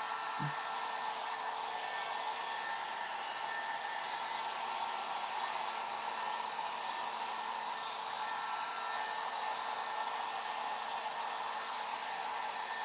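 Electric heat gun running on low, a steady blowing hiss with a faint motor hum, passed over freshly poured epoxy resin to burst surface bubbles.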